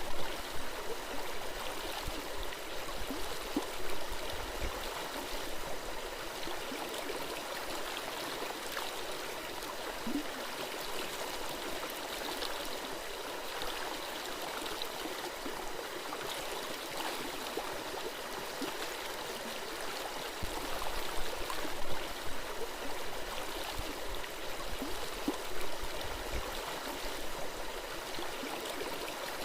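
Gentle forest stream flowing and gurgling over stones, a steady babbling of water with small splashes.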